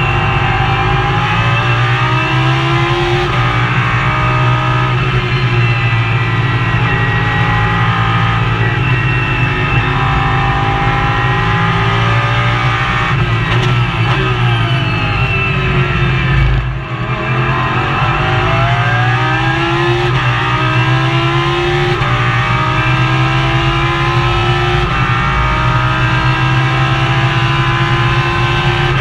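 Lamborghini Super Trofeo race car's V10 engine heard from inside the cockpit at racing speed, its note repeatedly climbing in pitch and dropping back as the car accelerates through the gears and slows for corners. A little past halfway the sound briefly drops away as the throttle is lifted, then climbs again.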